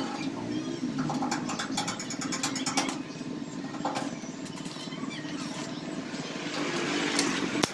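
A motorcycle engine running steadily, with a quick run of light, rapid metallic clicks for about a second and a half, starting about a second in, and a few scattered knocks later.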